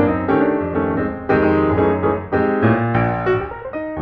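Background instrumental music: a piano-like keyboard playing a melody over held low chords, with new notes several times a second.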